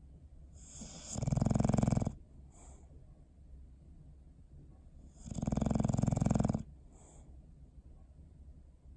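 English bulldog snoring in its sleep: two snores, each about a second long, roughly four seconds apart.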